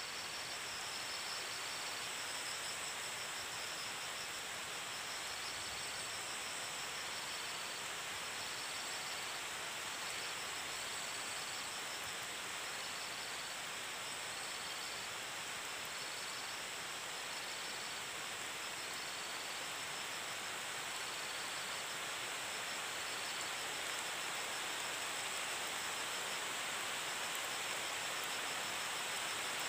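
Tropical forest insects: a steady high-pitched drone with a short chirp repeating roughly once a second that stops about three-quarters of the way through, over a steady hiss.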